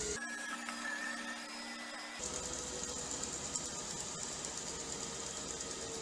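Robot vacuum cleaner running with a steady whir and hiss. For about two seconds near the start the sound switches abruptly to a thinner whine without the low rumble, then the steady whir returns.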